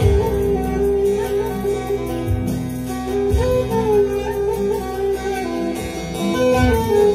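Live band music with no singing: an electronic keyboard plays the melody over a bass line, with low drum beats now and then.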